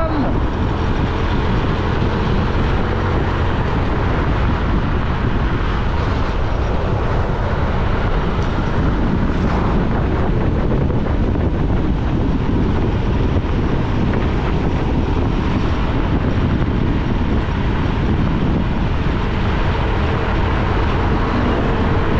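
Honda XRM 125 motorcycle cruising at a steady speed, its engine mixed with a steady rush of wind and road noise on the rider's microphone.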